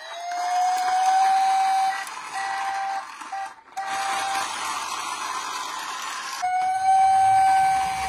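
Toy police car's electronic siren sounding through its small speaker: a held wailing tone that rises at first, breaks off a few times with a short gap around the middle, and comes back strongly near the end, over a steady hiss.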